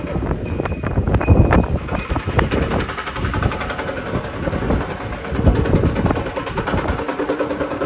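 Loud, gusty rumble of strong wind and city traffic, with scattered knocks and clatter and a brief high squeal in the first couple of seconds.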